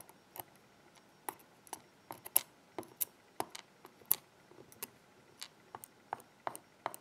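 Metal tweezers clicking against small metal lock key pins and a plastic pin tray as the pins are pushed into place: a string of sharp, irregular little clicks, about twenty in all.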